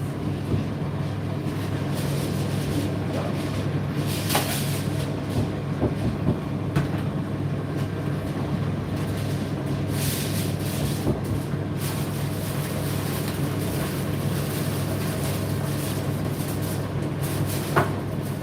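Indesit IDC8T3 condenser tumble dryer running: a steady motor and drum hum, with a few light knocks from the tumbling load.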